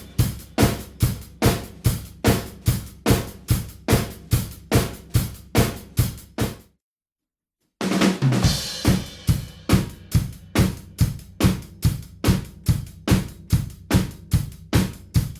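Drum kit playing a steady beat of kick, snare and cymbals. It stops about halfway through, and after a second's pause the beat starts again with a cymbal crash.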